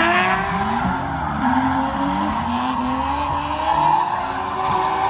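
Two drift cars sliding in tandem, their engines revving up and down at high revs while the tyres squeal continuously.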